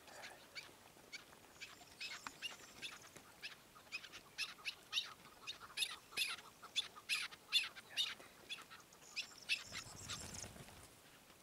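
Chukar partridges calling: a long run of short, sharp chuck notes, several a second, building to a dense burst of louder calls in the middle. Near the end comes a brief flutter of wings.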